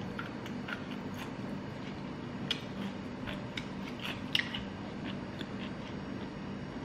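Close-up chewing of a crunchy raw green chili: a run of small crisp crunches and mouth clicks, with two louder crunches about two and a half and four and a half seconds in, over a steady low hum.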